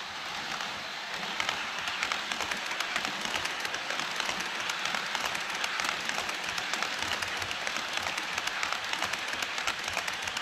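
HO scale model train rolling along the track: a steady clatter of many fast wheel ticks over a hiss, a little louder from about a second in.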